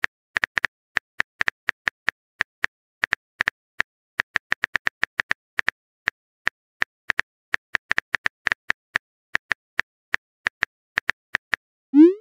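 Phone keyboard typing clicks, short sharp taps coming irregularly about three or four a second as a text message is typed. Near the end a quick rising swoop and a louder pitched chime sound as the message is sent.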